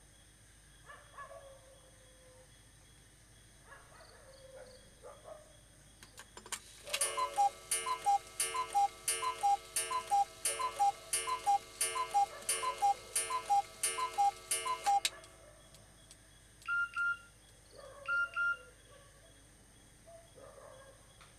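Mobile phone sounding an electronic tone: a fast two-note beeping pattern repeats for about eight seconds and then cuts off suddenly. About two seconds later come two short, higher single beeps.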